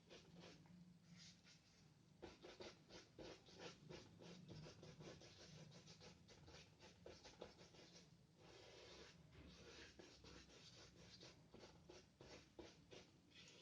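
Faint, rapid short strokes of a medium paintbrush loaded with gray gouache, brushing over paper as a round area is filled in.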